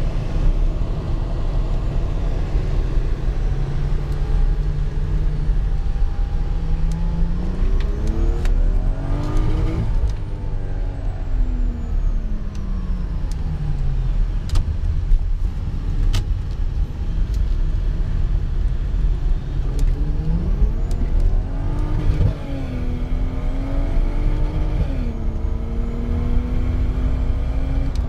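Lexus GS300's turbocharged 2JZ-GE straight-six heard from inside the cabin while driving, with steady road rumble. The engine note climbs as the car accelerates, falls away, then climbs again with two quick upshifts of the automatic transmission near the end.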